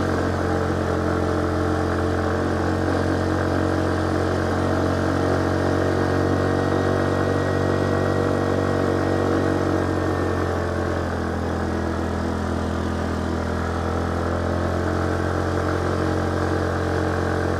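Motorcycle engine pulling hard up a steep climb under heavy load, running steadily, with a slight shift in its note about eleven seconds in.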